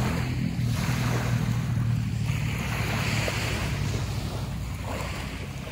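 Small sea waves washing onto the beach, the hiss swelling and ebbing with each wash, over a steady low rumble.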